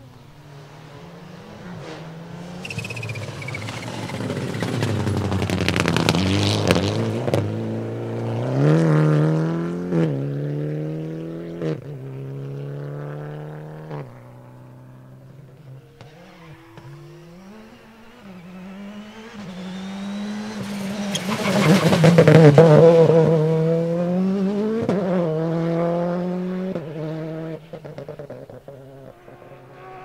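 Rally cars at full throttle on a special stage, two passes: a car comes up loud about six seconds in and pulls away, and a second does the same about 22 seconds in. Each time the engine note climbs and drops back at each upshift as it accelerates through the gears.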